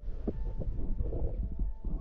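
Water sloshing faintly around a gloved hand and a wet stone held at the surface, with small soft splashes over a steady low rumble.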